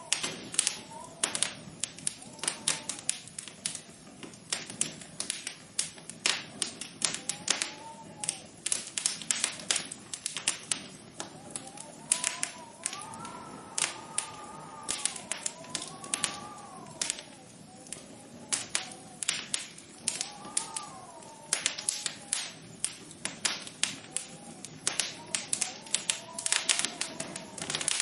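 Irregular light tapping, several taps a second, with faint tones that rise and fall underneath, most noticeably in the middle.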